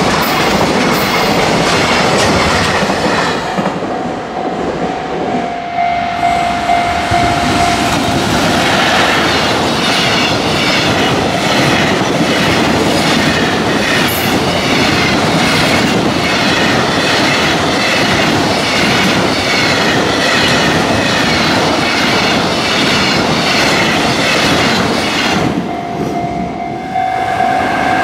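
Long freight container train passing close by, its wheels beating a steady clickety-clack over the rail joints. The clatter eases briefly about two seconds before the end.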